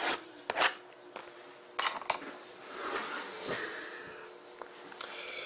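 Trading cards and their plastic holders being handled on a table: several light clicks and taps with some soft sliding and rubbing.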